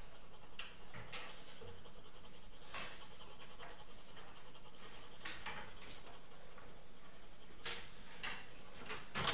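Coloured pencil shading on drawing paper: short strokes of the pencil across the paper at irregular intervals over a steady hiss.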